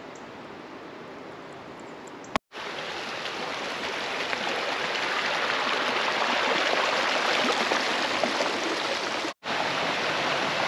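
Stream rushing over rocks, a steady rush of running water. It is quieter for the first couple of seconds, then much louder after a sudden break about two and a half seconds in, and it cuts out briefly once more near the end.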